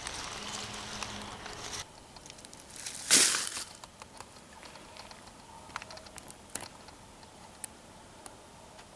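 Rustling and crackling, like movement in dry leaves and brush, with one louder rustle about three seconds in, then a few light clicks.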